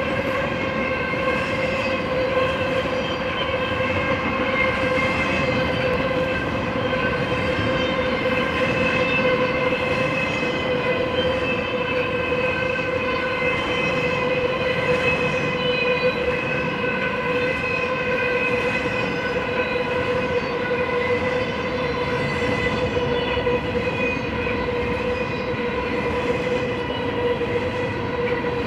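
Double-stack intermodal container cars of a freight train rolling past: a steady rumble of steel wheels on rail, with a high-pitched ringing tone held at one pitch throughout.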